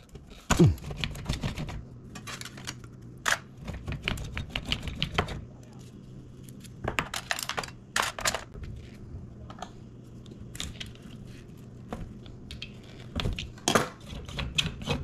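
Irregular clicks, taps and knocks of Headway LiFePO4 cylindrical cells and their plastic cell holders being worked apart and handled by hand, over a faint low steady hum.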